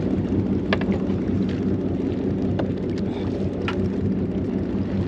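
Fishing charter boat's engine running with a steady low hum, with a few faint clicks scattered through it.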